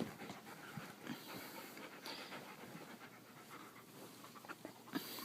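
A dog panting faintly and steadily.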